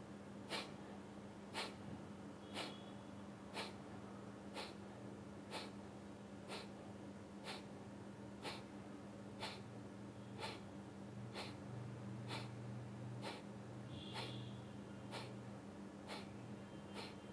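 Kapalbhati breathing: short, forceful exhalations pushed out through the nose, about one a second, each a sharp faint puff. A steady low hum runs underneath.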